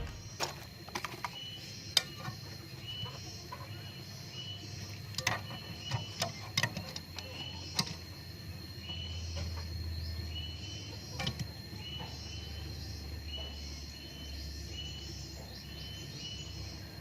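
A small bird chirping over and over in short high notes, roughly two a second, over a faint steady high whine and low hum, with scattered sharp clicks and knocks.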